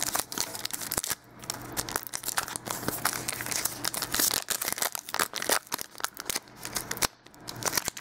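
A trading card pack's crimped wrapper crinkling and tearing as it is pulled open by hand: a run of irregular crackling rustles.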